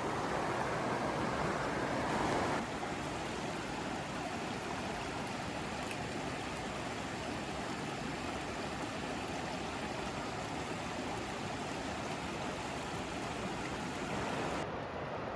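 River water running, a steady rush of flowing water, a little louder for the first couple of seconds.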